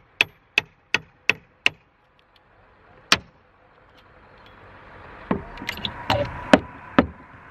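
Hand hammer striking a chisel into old wooden roof sheathing boards: a quick run of five sharp strikes, about three a second, then one more strike about a second and a half later, and a few irregular knocks near the end.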